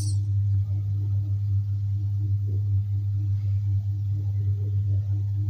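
Steady low hum of recording background noise, with a fainter higher tone riding on it; no other sound stands out.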